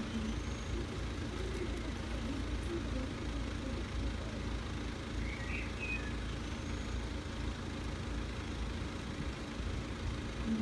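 Steady low rumble of road traffic and idling vehicles, with two short high chirps, one about five seconds in.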